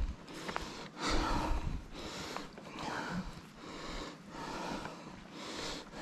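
A person breathing hard and close, about one breath a second, while hiking over rough ground.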